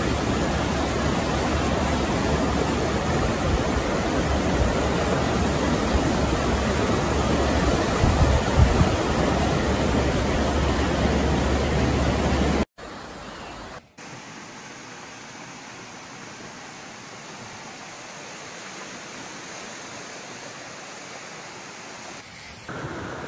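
Fast-flowing floodwater rushing through streets, a steady noise of water. It drops off suddenly about 13 seconds in to a quieter rush, and gets louder again near the end.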